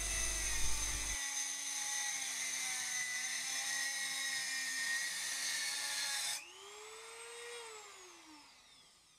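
Dremel rotary tool with an abrasive cut-off wheel cutting through M5 steel threaded rod, a high-pitched steady whine. About six seconds in it is switched off and the wheel winds down, its whine falling and fading.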